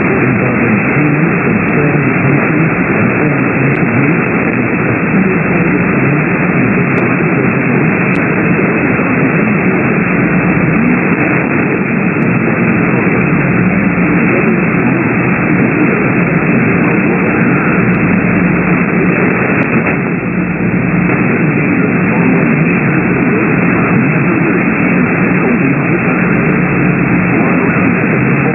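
Loud, steady radio static from a receiver on a weak or lost signal: an even hiss with no clear voice or tone in it.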